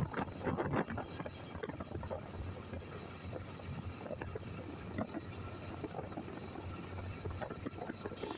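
Motorcycle riding at cruising speed: a steady engine hum under wind rushing over the microphone in uneven gusts.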